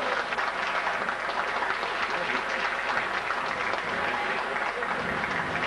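Arena crowd applauding at the end of a boxing round, a steady patter of many hands clapping.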